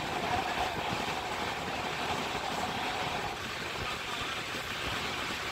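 Two Indian express trains running side by side on parallel tracks, heard from the open door of one of them: a steady rumble and clatter of wheels on rails with wind rush, and a thin steady whine that fades about three seconds in.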